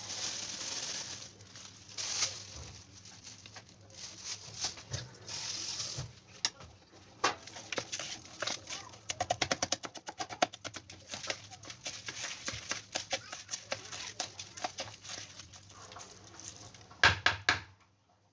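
A hand mixing uncooked rice with tomato paste, spices and chopped herbs in a plastic colander: rustling, then rapid fine clicking and crackling of the grains against the plastic, with a few louder knocks near the end.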